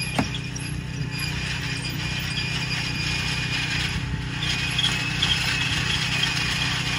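Steady low hum of an idling vehicle engine. A faint hiss rides above it, with scattered light crackles from about halfway through.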